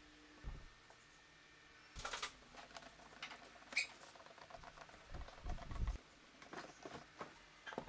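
Hand screwdriver driving a wood screw into a plywood plate: faint, scattered clicks and short squeaks as the screw turns, with a few light knocks of handling.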